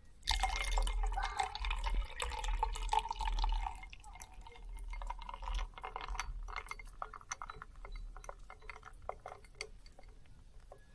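Liquid pouring into a container for about three and a half seconds, followed by a run of scattered drips and small clinks.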